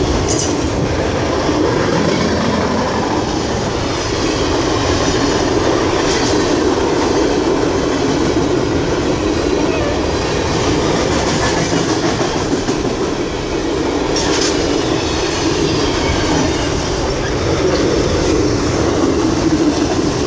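Canadian National freight train cars rolling past on the rails: a steady, loud clatter of steel wheels over the track, with a few brief sharp clicks standing out.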